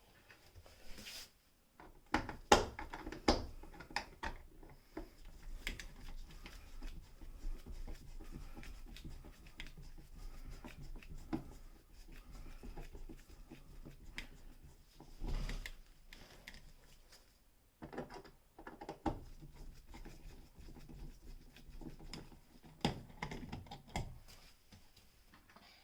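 Screwdriver unscrewing the screws of a wall light switch, with irregular metal clicks, scrapes and small knocks as the screws turn and the switch is handled.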